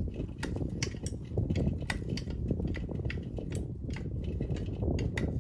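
Hand tools working steel bolts off an ATC's fender and rack: irregular sharp metallic clicks and clinks, a few a second, over a low steady background noise.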